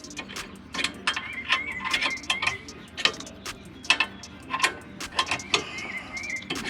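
Irregular sharp clicks and taps of hand tools against metal rear brake parts.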